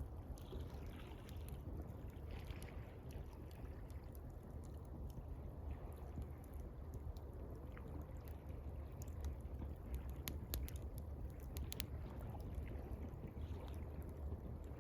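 Gentle water lapping over a steady low rumble, with a campfire crackling in scattered sharp pops that come thickest about ten to twelve seconds in.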